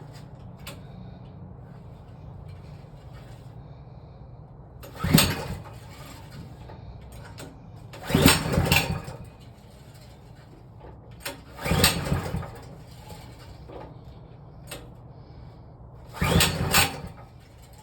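Recoil pull-starter of a Hart 3600-watt gas generator being yanked four times, a few seconds apart; each pull is a short, loud whirring rattle as the engine cranks over.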